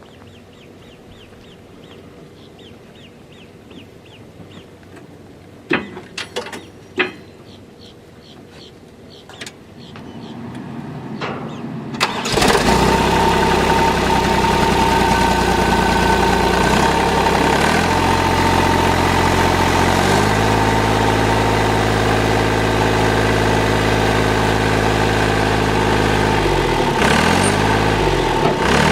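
A few knocks and clicks, then a starter cranks for a couple of seconds and the Ditch Witch 1025 backhoe's Deutz diesel engine catches about twelve seconds in. The engine then runs steadily, its speed stepping up and down a few times.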